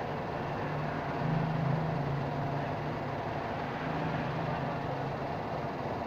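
Steady background noise with a low droning hum that grows louder about a second in and fades out about five seconds in.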